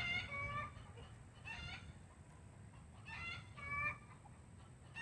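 Backyard hens calling: about four short, pitched clucking calls spread across a few seconds.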